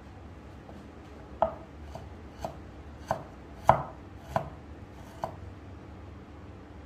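Kitchen knife slicing ginger on a wooden cutting board: about seven sharp knocks, roughly one every two-thirds of a second, starting about a second and a half in, the loudest in the middle.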